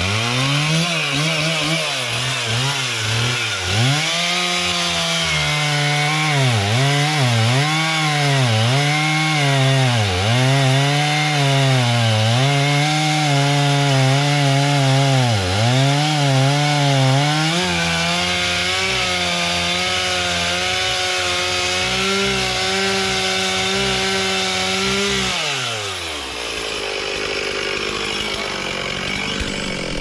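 Two-stroke chainsaw cutting through a hard maple trunk, the engine's pitch dipping and recovering again and again as the chain loads up in the wood, then running steadier at full speed. Near the end the throttle is let off and the engine drops to idle.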